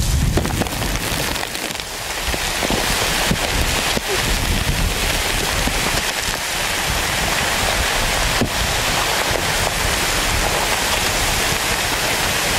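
Dust and debris raining down in the dark after a World Trade Center tower's collapse: a dense, continuous hiss and patter with a few sharp knocks. A heavy low rumble at the start eases within the first couple of seconds.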